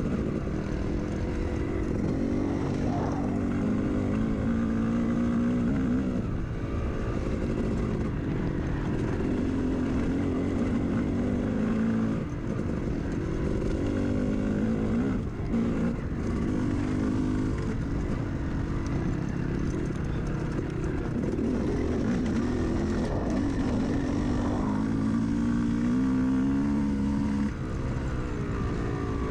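Dirt bike engine being ridden over rough single track, its pitch rising and falling as the throttle is opened and closed, over a constant rumble.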